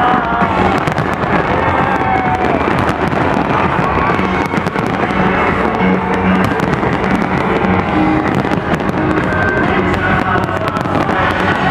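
Dense fireworks barrage: many shells bursting in quick succession, a continuous run of bangs and crackles, with music playing alongside.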